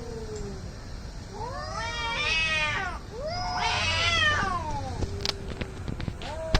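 Two cats yowling at each other in an aggressive standoff. Two long, wavering yowls follow one another in the middle, after the falling tail of an earlier call, with a few sharp clicks near the end.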